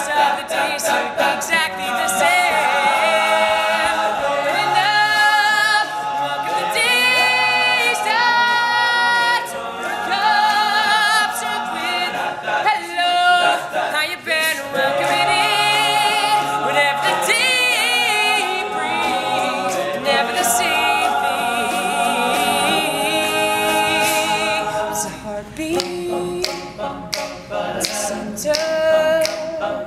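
All-male a cappella group singing: a lead voice with wavering vibrato and runs over close backing harmonies. Sharp percussive ticks keep time near the end.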